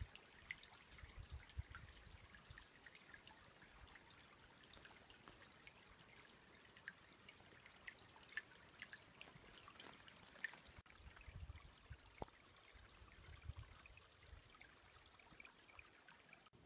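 Near silence: a faint trickle of shallow creek water over stones, with scattered light ticks and a few soft gusts of wind on the microphone near the start and again past the middle.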